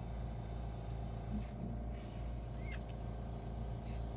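Steady low hum with one faint, short high squeak from a newborn pug puppy about two and a half seconds in.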